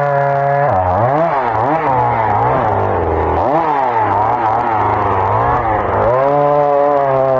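Small two-stroke chainsaw engine running at high speed. Its pitch sags and recovers again and again as the saw works through firewood, then holds high and steady near the end.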